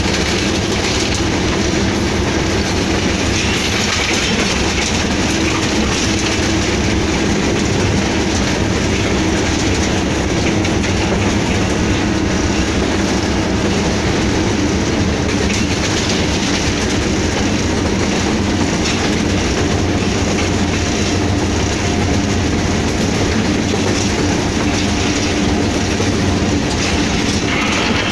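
Cab of a moving Hitachi PHA-20 diesel-electric locomotive: the diesel engine runs steadily under the clickety-clack of the wheels on the track.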